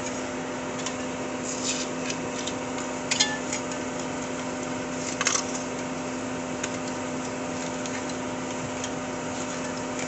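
A metal putty knife scraping and cutting excess cured spray foam away from around a PVC pipe set in concrete: a few short scrapes and crackles, the loudest about three and five seconds in, over a steady motor hum.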